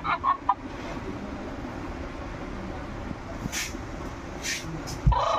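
Small electric motor inside an animated peek-a-boo plush doll whirring steadily as it works the doll's arms to lift the blanket over its face. There are a few sharp clicks partway through and a thump near the end, and the doll's high-pitched recorded voice starts again right at the end.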